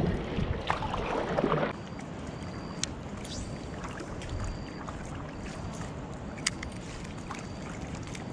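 Kayak paddle strokes splashing through the water, stopping abruptly under two seconds in. After that comes a softer steady wash of water and wind with two sharp clicks and a faint high peep repeating about once a second.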